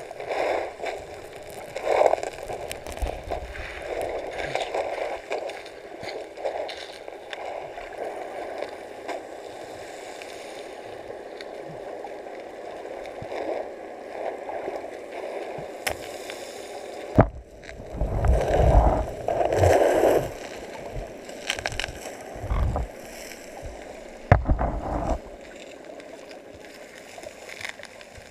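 Underwater sound picked up by a camera in a waterproof housing: a steady muffled wash of seawater with gurgling swells, and two sharp knocks, the loudest surges coming just after the first.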